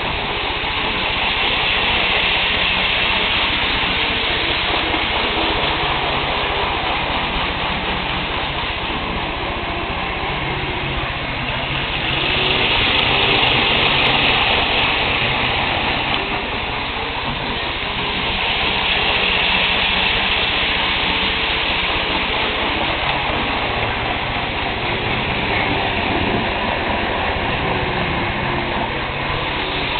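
Kato N-scale model of the Renfe AVE Series 100 running along the track, a steady whirring hiss that swells three times as it passes close, loudest about halfway through.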